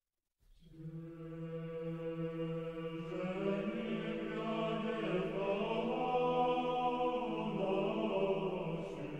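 Choir chanting: a low note held steady as a drone, with a melody line moving above it from about three seconds in. It fades in just after the start.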